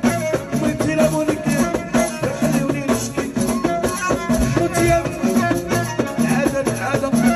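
Live Moroccan band music in the alaoui style: violin and keyboard melody over a regular rhythm of hand-held frame drums with jingles.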